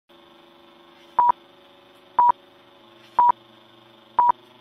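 Film-leader countdown beeps: four short beeps of one high tone, one a second, each starting and ending with a click, over a faint steady hum and hiss.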